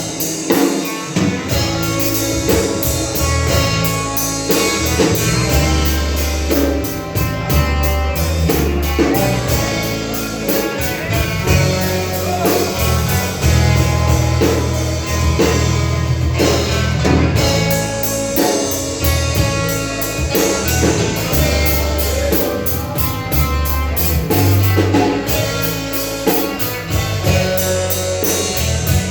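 Live gospel band playing an instrumental passage: electric guitar, bass and drum kit with a steady beat.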